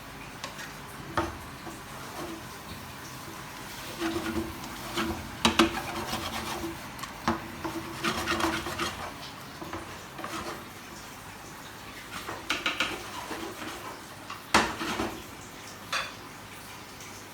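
A spatula scraping and knocking against a pan in irregular strokes as chicken wings are tossed and mixed through a thick sauce.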